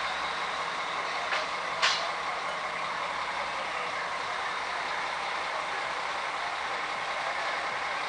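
Mobile crane's diesel engine running steadily, with two short clicks about a second and a half and two seconds in.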